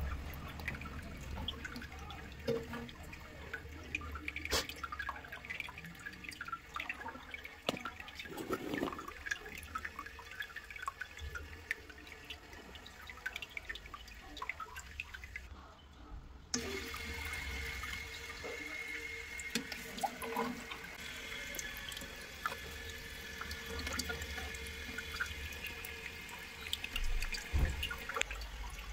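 Water trickling and dripping in a toilet cistern, in small irregular splashes. About halfway through it changes to a steadier run of water with a faint whine.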